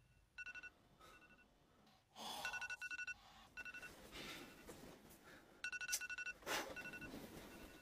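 Faint phone alarm beeping in repeated short clusters of two-tone electronic beeps, with a few soft rustles of bedding as a sleeper turns over.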